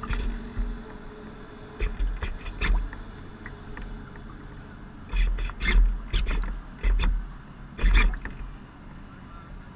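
Small waves slapping and splashing against the wooden hull of a radio-controlled model sailboat under way, heard close up from a camera on its deck: irregular splashes with low thumps over a steady low rumble, coming in clusters that are thickest in the second half.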